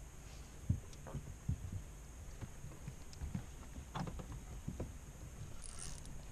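Scattered soft low thumps over a faint steady hum: movement knocking against the hull of a small fishing boat.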